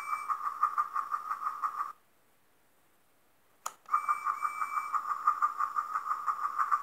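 Take-n-Play Lights and Sounds Percy toy engine's tiny speaker playing its steam-chuffing sound effect, a rapid even pulsing, which cuts off about two seconds in. A click of its button comes a second and a half later, and the chuffing starts again with a short whistle tone at its start.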